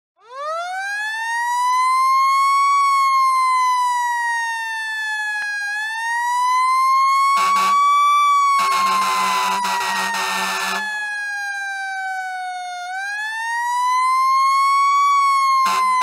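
Fire truck siren wailing. It winds up from a low pitch at the start, then slowly rises and falls in long sweeps. A deep air horn blasts briefly about seven seconds in, then for about two seconds, and briefly again near the end.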